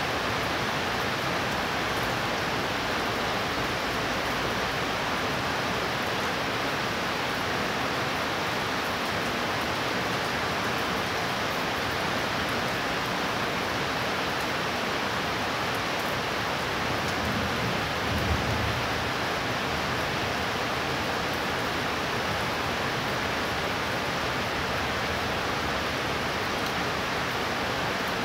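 Heavy thunderstorm rain pouring down, a steady, even hiss. A brief low thump about two-thirds of the way through.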